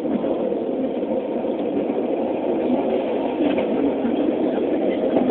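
Diesel railcar running steadily along the line, heard from on board: an even rumble of engine and wheels on the rails. It is recorded through a mobile phone's microphone, which makes it sound thin.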